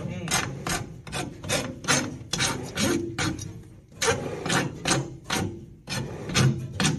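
Quick back-and-forth hand scraping strokes over a hard surface, about three a second, like filing or sanding, with a brief pause about four seconds in.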